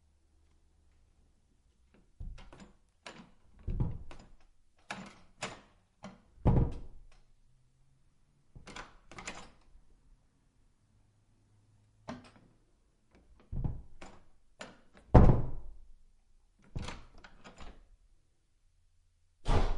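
Old wooden doors being opened, shut and slammed: a series of separate clicks and thuds, often in quick pairs, with silence between them. The loudest is a hard slam about fifteen seconds in.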